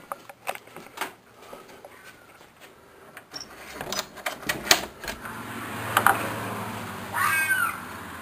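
Clicks and knocks as a door is unlatched and opened, then steady night air outside and a short, screeching animal cry about seven seconds in. The animal is unidentified, and the owner suspects a fox or coyote in distress.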